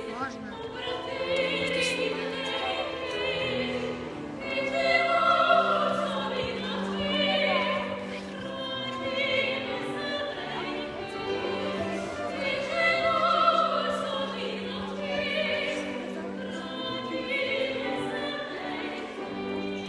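Operatic singing with instrumental accompaniment, in continuous phrases.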